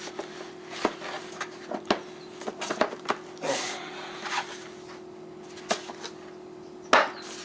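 Plastic parts of a Keter Dynamic Turn and Go composter being fitted together by hand: scattered clicks and knocks, a short scrape about three and a half seconds in, and a loud knock near the end as the pieces go home.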